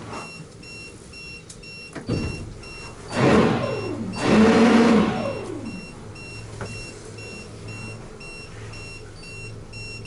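Boat's shallow-water depth alarm beeping steadily, about two short high beeps a second, warning that the water under the hull is shallow. Around three to five seconds in, a louder rushing sound with falling tones rises over the beeping.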